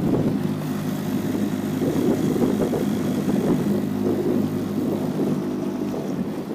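Parsun 5.8 outboard motor running steadily with the boat under way, an even engine hum over the rush of water along the hull.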